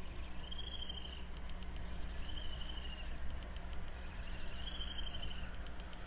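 Three short, high-pitched trilled calls, about two seconds apart, from an unidentified animal, over a steady low hum.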